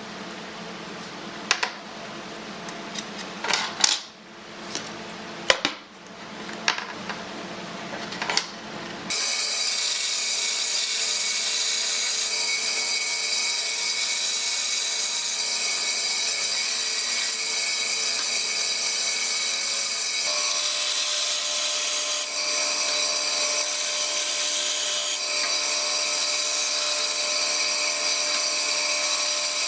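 Several sharp wooden knocks and taps as the workpiece is handled and marked. About nine seconds in, a band saw starts abruptly and runs steadily with a hissing whine as its blade cuts into small wooden strips.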